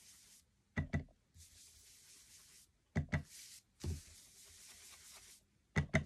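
Foam blending brush tapped down onto an ink pad to load it with ink: four short bursts of soft taps, most in quick pairs, a second or two apart.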